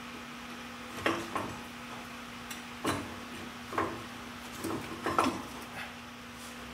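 Irregular metal clunks and knocks, about six in all, as the old A/C compressor is wrestled loose and lifted out of the truck's engine bay, knocking against its mounts and nearby engine parts. A steady low hum runs underneath.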